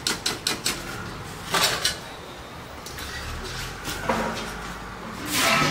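Metal skimmer tapping quickly against a steel wok, about four taps a second, stopping about a second in, as raw-banana chips are drained and lifted out of hot oil. Then frying oil in the wok, with two short louder clatters as chips are scooped and tipped into a steel bowl.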